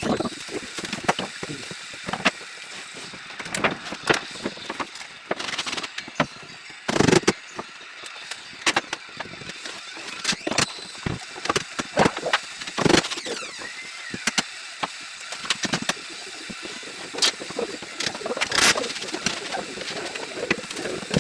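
Carpentry work on a building site: frequent sharp knocks and clicks from tools and timber, with a few brief whines of a power tool spinning up or down.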